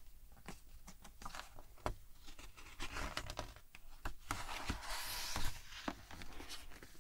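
Fingers tapping and rubbing on the glossy paper page of a hardcover picture book, with small scattered clicks. About four and a half seconds in, the page is turned over with a paper swish, the loudest sound here.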